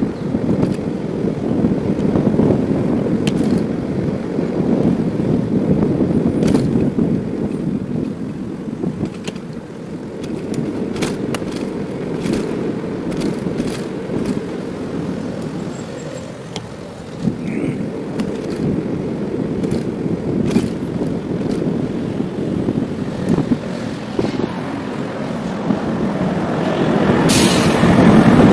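Wind and road noise from riding a bicycle through city streets, with a steady low rumble and scattered small clicks and rattles. Near the end the noise grows louder as the bike passes close between buses, with a brief sharp hiss.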